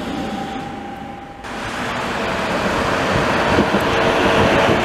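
A tram running on street track, rolling noise with a steady whine. After an abrupt cut about a second and a half in, a tram passes close by and grows louder.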